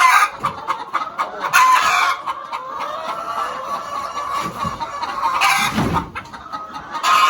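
A flock of chickens clucking steadily, with three louder outbursts of squawking.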